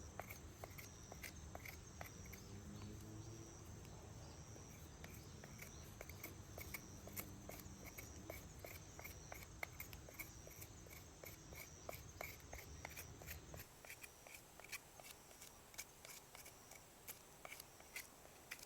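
Faint insect chirping in a quick, even rhythm, about three chirps a second, with scattered sharp clicks. A low background rumble cuts out about two-thirds of the way through.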